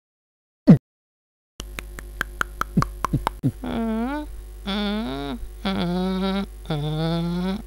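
Cartoon soundtrack: a single short falling blip out of silence, then a quick run of clicks with little falling blips. After that a comic tune plays in separate sliding pitched notes, each about half a second long.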